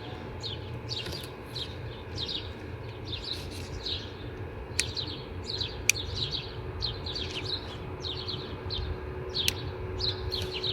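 Small birds chirping rapidly and repeatedly, with a few sharp clicks and a low background rumble.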